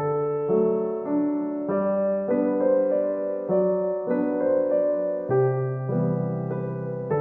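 Background piano music: a gentle piano piece with notes and chords struck about every half second to a second and left to ring.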